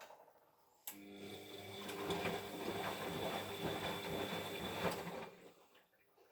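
Siemens washing machine drum turning in the main wash of a silk programme: with a click about a second in, the motor starts and runs with a steady hum and high whine for about four seconds, then stops. This is one of the short turns between long pauses of the gentle wash rhythm.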